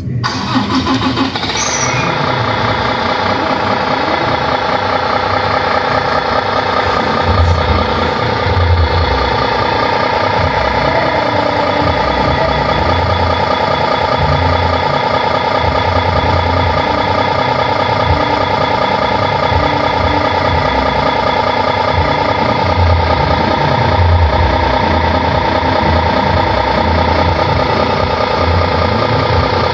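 Simulated heavy diesel truck engine from an RC model's sound module, running steadily after a brief rising start-up sound.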